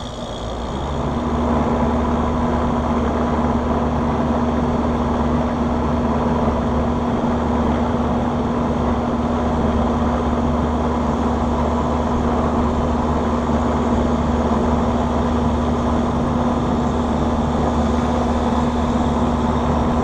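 Rooftop packaged air-conditioning unit starting up with both cooling stages jumpered on at the control board: a steady mechanical hum with a low steady tone, building over the first couple of seconds and then holding.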